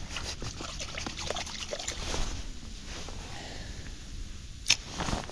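Water splashing and trickling as a mud-covered spinning reel handle is rinsed in the river, with scattered small clicks and one sharp click about four and a half seconds in.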